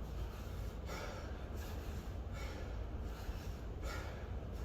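Sharp, forceful breaths from a person doing kettlebell swings, one roughly every three-quarters of a second, in time with the swings. A steady low hum runs underneath.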